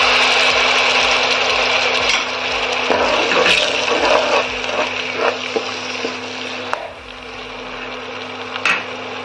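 Tomato paste sizzling as it hits hot mustard oil and cumin seeds in a kadhai, the sizzle loudest at first and slowly dying down. A spatula scrapes and taps against the pan now and then as the paste is stirred.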